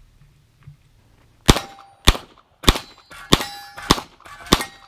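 A pistol fired six times at a steady pace, starting about a second and a half in and roughly half a second to two-thirds of a second apart, with steel plate targets ringing after the hits.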